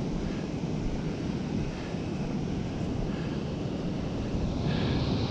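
Wind buffeting the microphone over the wash of surf on a beach, a steady rumbling rush, with a few faint short tones now and then.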